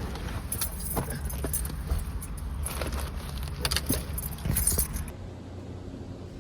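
Keys jangling and clinking in clusters over the low rumble of a car; both drop off about five seconds in.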